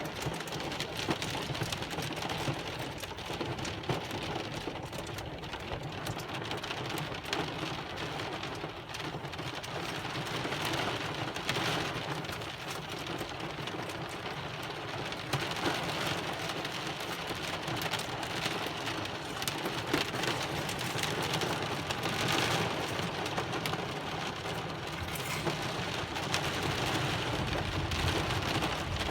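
Heavy rain pouring steadily during a thunderstorm, with scattered sharper hits on the surface and a low rumble building near the end.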